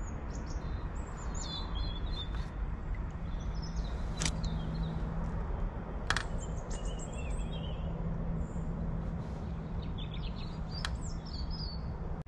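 Small birds chirping intermittently over a steady low outdoor rumble, with a few sharp clicks about four, six and eleven seconds in.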